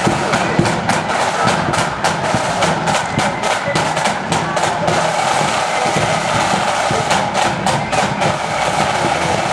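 Marching flute band playing a march: side drums beating in quick, sharp strokes with a bass drum underneath, over a steady tune.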